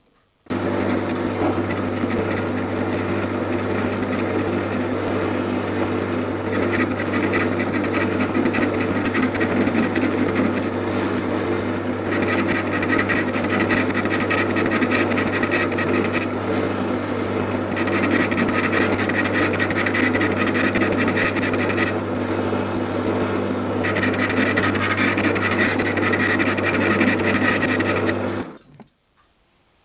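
Metal lathe running with a boring bar cutting inside the bore of a machined casting: a steady motor hum with scraping cutting noise that comes and goes in four long stretches as the tool feeds. It starts about half a second in and stops abruptly near the end as the lathe is switched off.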